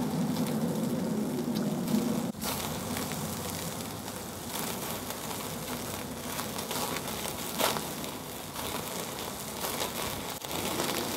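Steak sizzling and the charcoal fire crackling on a small tabletop grill, as fat dripping from the meat flares up in the flames.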